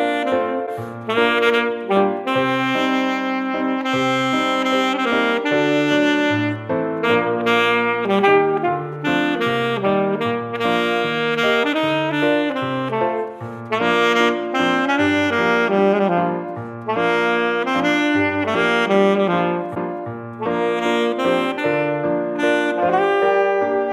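Saxophone playing a flowing melody of many connected notes, picked up close by a studio condenser microphone.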